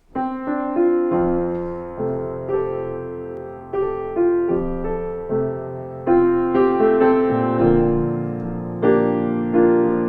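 Piano playing a slow piece, chords struck about once a second, each ringing on and fading before the next.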